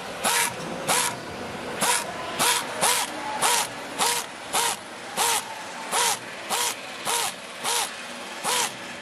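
Handheld power screwdriver spinning in short whirring spurts, about fourteen in a row at roughly one and a half a second, as it runs down spoke nipples one after another on a motorcycle wheel rim.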